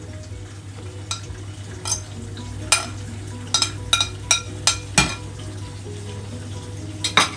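A steel spoon scraping and clinking against a plate, about ten sharp clicks, as flaked tuna is pushed off it into a frying pan, with the pan sizzling faintly over a steady low hum.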